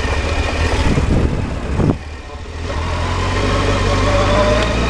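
Honda CBR600 F3's inline-four engine running, heard from the rider's helmet. The revs rise briefly, then the throttle shuts about two seconds in and the engine falls quiet for under a second before building up again.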